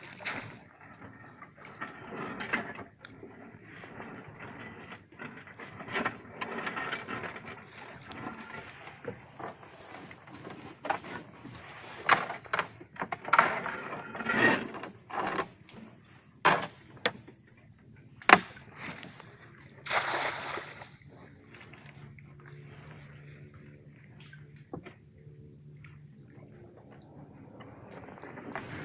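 Night insects, crickets among them, chirring steadily at several high pitches throughout. Over them come irregular rustling and several sharp knocks and clicks from someone moving about, most between a few seconds in and about two-thirds of the way through, then the insects alone near the end.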